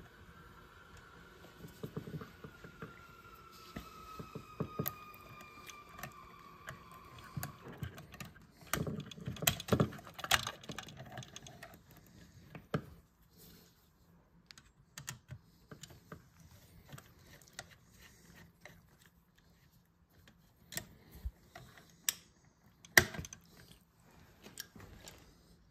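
Scattered small clicks and taps of a screwdriver working a wall switch's terminal screws and of the plastic switch and its wires being handled, with a flurry of clicks about ten seconds in and one sharp click near the end.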